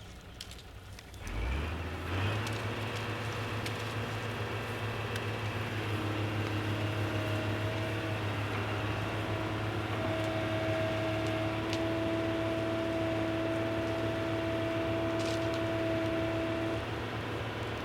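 An engine starts about a second and a half in, its pitch rising quickly and settling into a steady running hum. A steady higher whine joins at about six seconds and stops shortly before the end.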